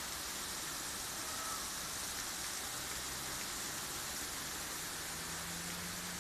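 Steady hiss of falling water, even and unbroken.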